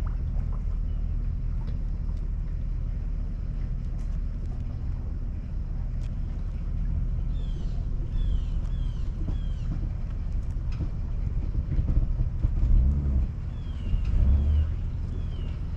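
An engine running at a steady low idle, swelling louder twice near the end. Short falling chirps from a bird repeat in two runs over the engine.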